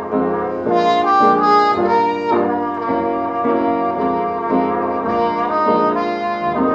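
Muted trumpet playing a jazz melody in a string of held and moving notes, with piano accompaniment underneath.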